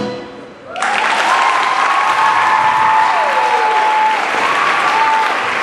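Choral singing fades out, and a moment later an audience bursts into loud applause and cheering, with a long high whoop carried over the clapping.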